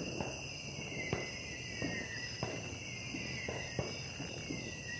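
Night-time insect chorus: crickets trilling steadily in several high-pitched bands, with a few faint scattered knocks and pops.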